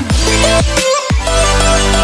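Background music with a heavy bass line; a long low bass note is held through the second half.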